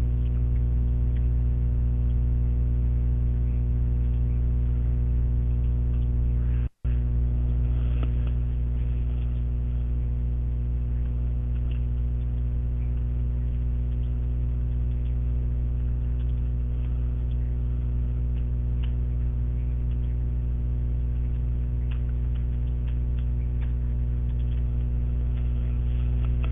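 Steady electrical mains hum, a low buzz with evenly spaced overtones, running under the recording. It cuts out for an instant about seven seconds in.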